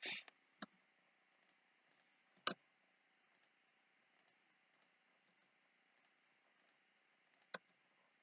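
Computer mouse clicks in a quiet room: a short soft burst at the very start, then single sharp clicks about half a second in, about two and a half seconds in, and near the end.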